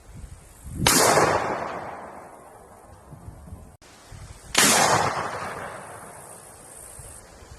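Two single gunshots about three and a half seconds apart. Each is a sharp, loud crack followed by a long echo that fades over a couple of seconds.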